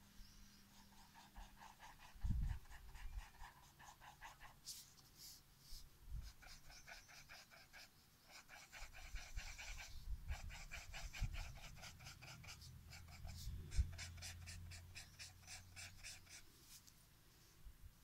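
Quick back-and-forth rubbing of a thin stick on drawing paper, blending pencil shading, in runs of several strokes a second with short pauses between them. A few dull knocks, the loudest a couple of seconds in.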